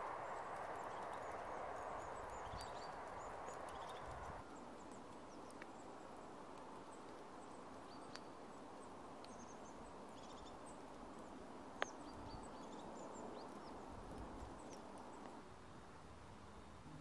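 Outdoor ambience: a steady rushing hiss, louder for the first four seconds and then quieter after an abrupt change. Over it, small birds call with scattered short high chirps, and there is one sharp click about twelve seconds in.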